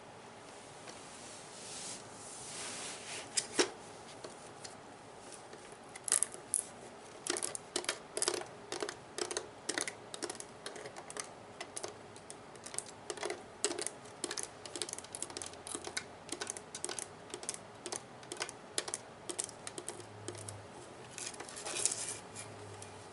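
Fingernails handling the hard plastic body of a Nerf gun: a stretch of quick, irregular sharp taps, two or three a second, between brief scratchy rubbing near the start and near the end.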